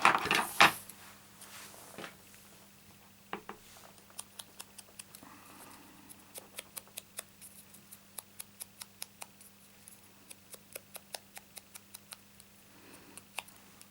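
Sponge dauber dabbing ink from an ink pad onto the edges of a small punched paper flower: a long run of light, quick taps, about three a second, after a couple of louder knocks at the start.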